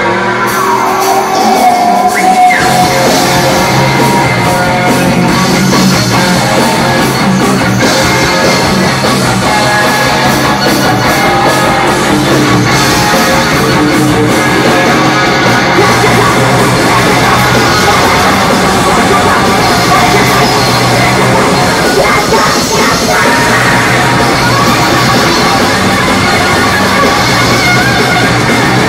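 Live recording of aggressive hardcore industrial noise rock: a band playing a loud, dense wall of sound with shouted vocals. A heavy low end comes in about two and a half seconds in.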